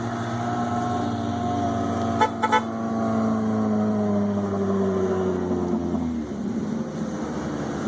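A car driving past with its engine note falling slowly and fading about six seconds in, and two short horn toots about two seconds in.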